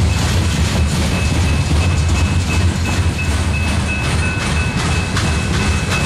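Freight cars of a mixed manifest train (gondolas and boxcars) rolling past close by, a loud steady rumble of steel wheels on rail with faint clicks over the joints.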